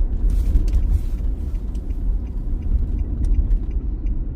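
Steady low rumble of an Infiniti car driving, road and engine noise heard from inside the cabin.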